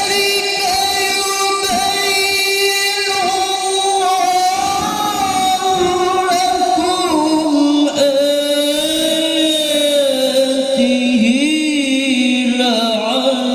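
A man's high voice reciting the Quran in melodic tilawah style, holding long drawn-out notes with wavering ornaments; the pitch steps lower over the second half.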